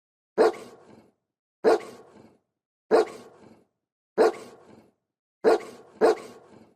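A dog barking six times in single barks about a second and a quarter apart, the last two in quick succession.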